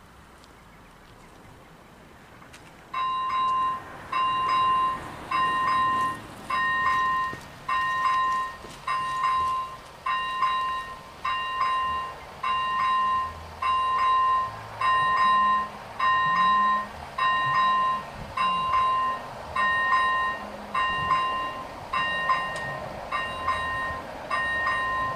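Two level-crossing warning bells begin about three seconds in. They sound a repeating two-tone ding, a little faster than once a second, warning that a train is approaching the crossing.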